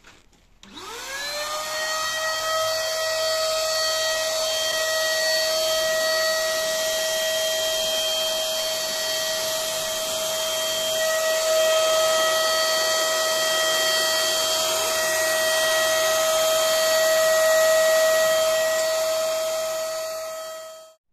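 Handheld electric paint spray gun starting up about a second in with a rising whine, then running steadily with a high whine over a hiss of air as it sprays primer, cutting off just before the end.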